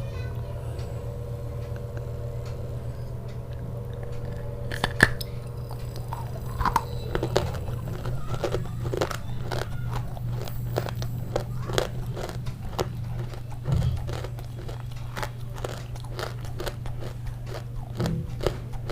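Crunchy food being bitten and chewed close to the microphone: from about five seconds in, a steady run of crisp crunches, a couple a second, over a low steady hum.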